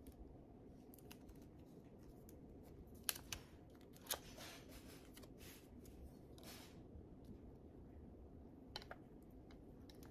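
Faint tabletop handling sounds: a few light clicks and two short rustles as craft materials are picked up and moved, over a low steady room hum.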